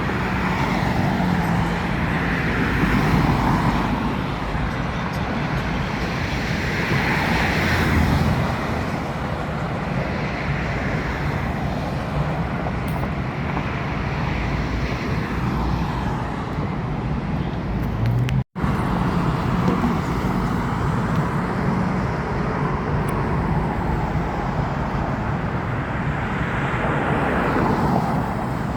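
Steady road traffic noise, with vehicles swelling past every few seconds; the sound drops out for an instant about two-thirds of the way in.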